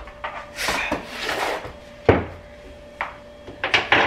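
Scraping and rubbing sounds of things being handled at a kitchen sink, with a sharp knock about two seconds in and a few quick clicks near the end.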